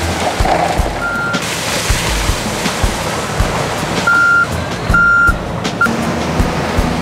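Hitachi ZW330-5B wheel loader's diesel engine running while its reversing alarm beeps four times at one steady high pitch, unevenly spaced, as the loader backs away from the truck. Gravel pours from the tipped bucket near the start.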